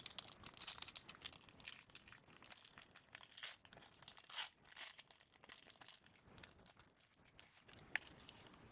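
A basketball card pack's wrapper crinkling and tearing as it is opened, with rustling of the cards inside.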